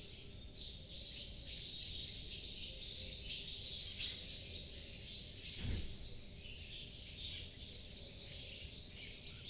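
Many small birds chirping at once in the background, a dense, continuous twittering, with one brief low thump a little past the middle.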